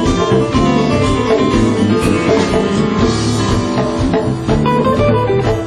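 Music with guitar and drums and a steady beat.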